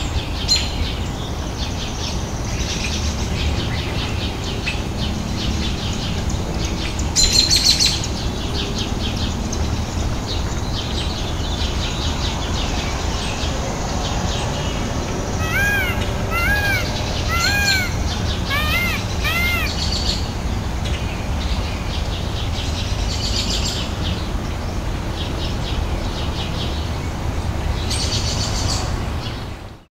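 Small birds chirping all around over a steady low rumble, with a brief louder flurry about a quarter of the way in. Around the middle comes a run of about eight short calls, each rising then falling in pitch.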